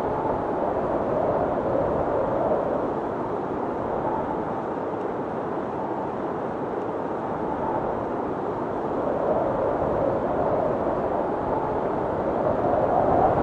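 A steady rush of wind noise with no distinct tones, easing slightly in the middle and building again near the end.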